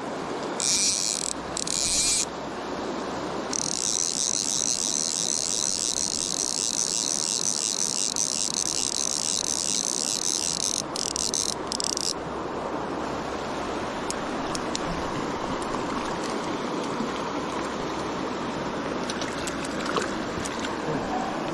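Fly reel's click-pawl buzzing in short runs, then one long run that stops abruptly about twelve seconds in, as the spool spins fast while a hooked fish is played. A river rushes steadily underneath.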